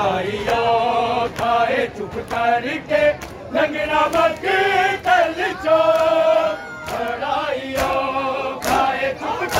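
A group of men chanting a noha, a Shia mourning lament, in unison without instruments. It is punctuated by regular sharp slaps of chest-beating (matam) from the mourners, which stand out most near the end.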